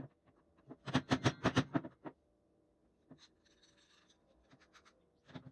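Metal drill-press parts and a spanner being handled on a wooden workbench: a quick run of clicks and knocks about a second in, fainter scraping a little later, and another knock near the end.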